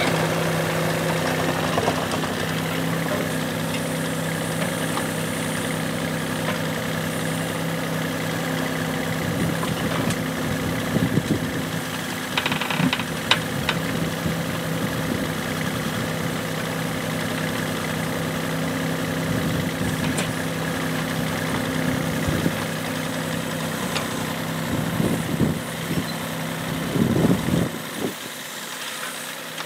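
Yuchai YC15-7 mini excavator's diesel engine running steadily while it digs. The bucket scrapes and knocks in the dirt a few times, about a third of the way in and again near the end, and the engine sound falls off just before the end.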